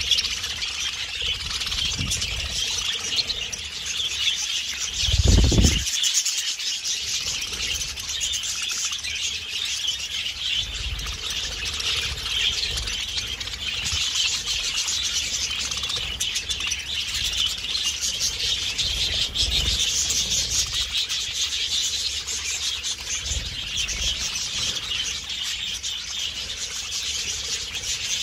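A flock of budgerigars chattering and chirping while their beaks scrape and gnaw at a cuttlebone, a steady, busy rasping chatter. A low thump comes about five seconds in.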